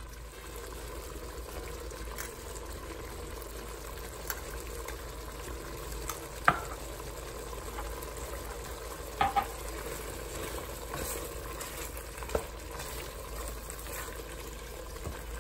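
Chicken pieces and red curry paste sizzling in hot oil in a stainless steel pot, stirred with a wooden spoon. A few sharp knocks of the spoon against the pot come about six and a half seconds in, twice about nine seconds in, and once more about twelve seconds in.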